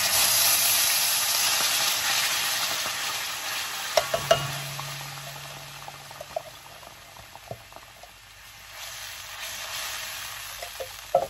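Coconut milk sizzling and bubbling hard in a hot wok as it is stirred, the hiss loudest at first and easing off over several seconds before picking up a little near the end. A few sharp knocks of the can or spatula against the wok come about four seconds in and again near the end.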